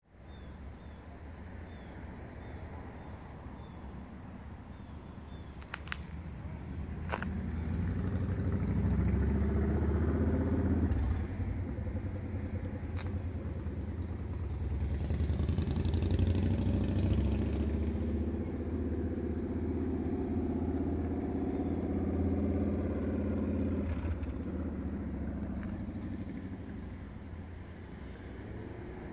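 Insects chirping in a steady pulsing rhythm, with a low motor-vehicle engine rumble that swells from about a quarter of the way in, is loudest through the middle and fades near the end. Two short clicks sound just before the rumble builds.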